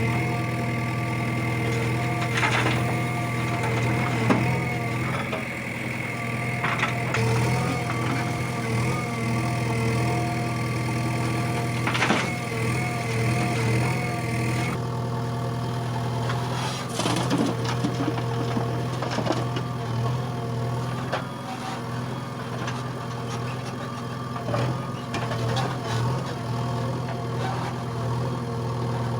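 Diesel engine of a JCB 3DX backhoe loader running steadily at work, with a faint high whine that stops about halfway through and a few scattered knocks.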